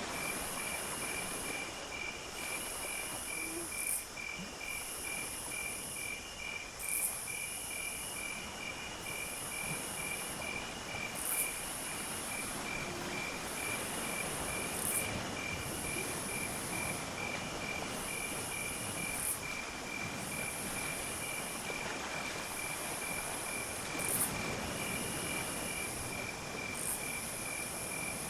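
Insects chirping in chorus: a steady pulsing cricket-like trill, with a higher buzzing that comes and goes about every two seconds.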